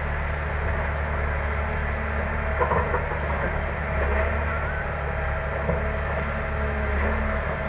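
Heavy diesel engines of a Cat hydraulic excavator and a dump truck running steadily during coal loading, with a few short knocks about three seconds in.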